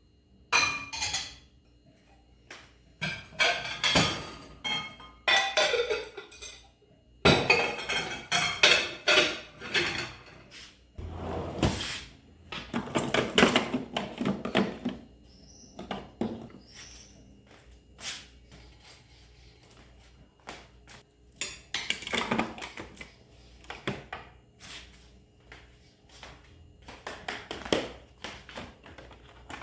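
Kitchen dishes and utensils handled: clinks, knocks and scraping in irregular bursts, with a thicker stretch of clatter in the middle.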